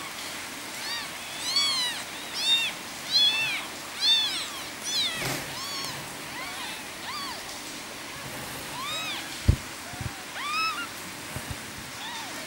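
Three-day-old kittens mewing repeatedly, thin high cries that each rise and fall in pitch, calling for their mother. The cries come thick in the first half and sparser later, and a sharp thump sounds about nine and a half seconds in, with a softer one just after.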